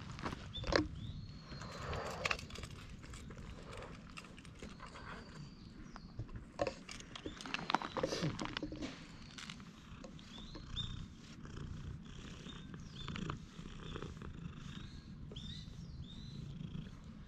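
A domestic cat purring steadily while it is brushed, with scratchy brush strokes through its fur now and then, most around the middle.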